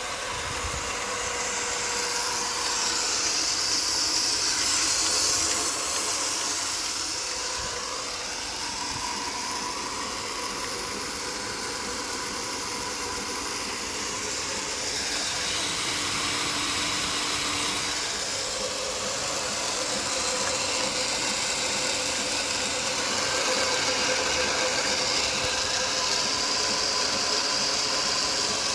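Commercial reverse-osmosis water filter plant running steadily: a constant machine hum with an even hiss over it, swelling and easing slowly.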